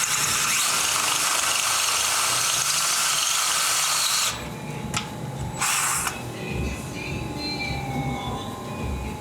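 Power drill turning a 9/16 bit through a stripped M14 plug hole in aluminium, enlarging it for a helicoil insert. It runs hard for about four seconds, then drops to a lighter whir with a few short bursts.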